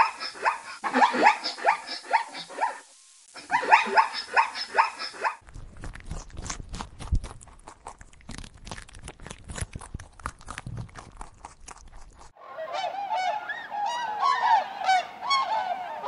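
A zebra barking in quick runs of high, yelping calls; about five seconds in, a rabbit chewing grass close to the microphone, a rapid crisp crunching. About twelve seconds in, a flock of geese starts honking, many calls overlapping.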